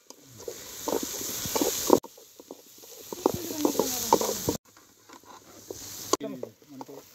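Diced carrots and green beans sizzling in an aluminium kadai while a spatula stirs them, scraping and clicking against the pan. The sound breaks off abruptly and resumes about two, four and a half, and six seconds in.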